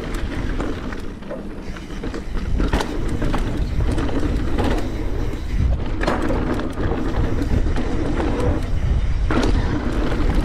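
Specialized Stumpjumper Evo mountain bike rolling fast down a dirt trail: tyres running over dirt and the bike rattling over bumps, with a few sharper knocks.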